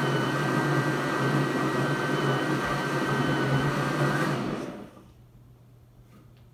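Countertop blender running, blending a strawberry smoothie, then switched off about four and a half seconds in, the motor running down to a stop.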